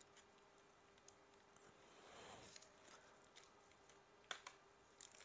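Faint clicks and a soft rustle of plastic as trading cards are slid out of a rigid plastic toploader and a soft penny sleeve. There is a brief rustle about two seconds in and a sharper click about four seconds in.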